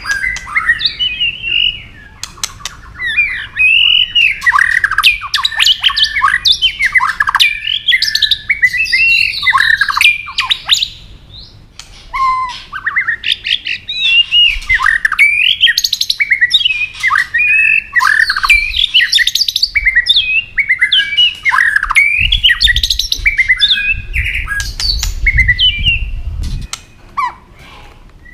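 Male white-rumped shama singing its heated fighting song, a rapid run of varied whistled phrases laced with sharp clicking 'tak' notes. There are short pauses about two seconds in and around eleven seconds in, and a low rumble underneath near the end.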